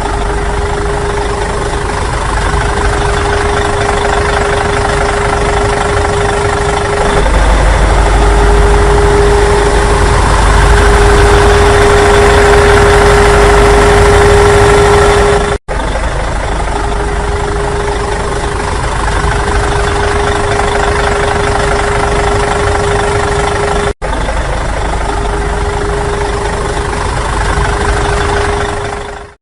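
Small electric motor of a DIY mini tractor running steadily with a constant whine. It grows louder for several seconds in the middle and drops out briefly twice.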